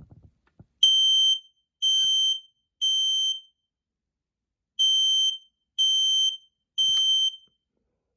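Kidde i9070 smoke alarm sounding on test with its high-pitched piercing horn: three half-second beeps about a second apart, a pause, then three more. This is the temporal-three evacuation pattern.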